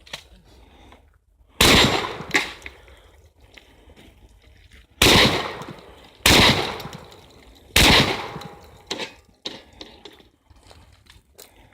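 Four shotgun shots, the first alone and the other three in quicker succession about a second and a half apart, each with a short echo trailing off, with a few lighter clicks in between.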